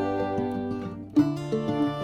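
Background music played on plucked acoustic strings such as guitar, with sustained notes and a new phrase struck about a second in.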